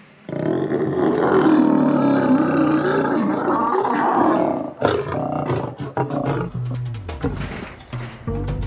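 Asiatic lions snarling and growling during courtship, the lioness in season with the male standing over her: one long, loud snarl of about four and a half seconds, then shorter, quieter growls.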